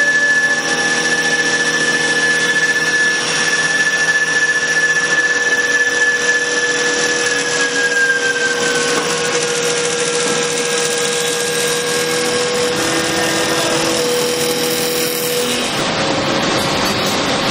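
CNC wood lathe running as it turns a wooden sofa leg, with a steady high whine that slides down in pitch about eight seconds in. Near the end the steady tones stop and the sound turns rougher and noisier.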